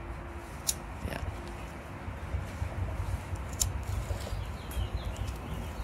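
Small knife blade scraping and clicking against a plastic motorcycle switch housing as it is trimmed, with a sharp click just under a second in, over a low steady background rumble.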